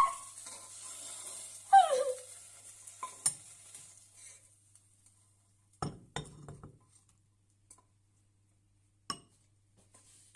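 Utensils stirring and clinking against a pot or bowl of jajangmyeon noodles, over a faint hiss at first, then a few separate clinks and taps that come further apart.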